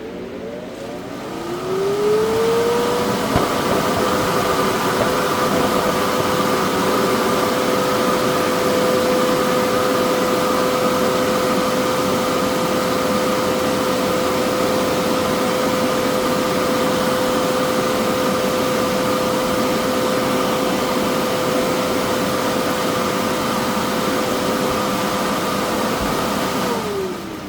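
Inflatable blower switched on: its fan motor spins up with a rising whine over the first few seconds, then runs steadily with a rush of air. Near the end it is switched off, and the whine falls as it winds down.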